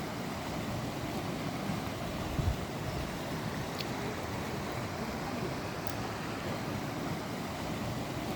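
Steady rushing noise, with a small low thump about two and a half seconds in.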